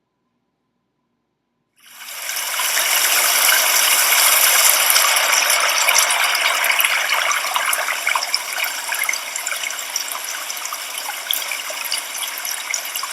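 A loud, steady hiss with fine scattered crackles. It starts about two seconds in and cuts off abruptly.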